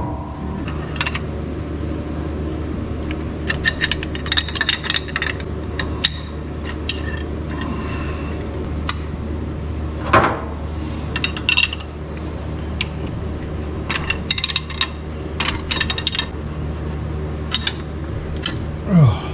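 Small metal parts and hand tools clinking and tapping in irregular clusters as the valvetrain of a straight-six engine is worked on with the valve cover off, over a steady low hum.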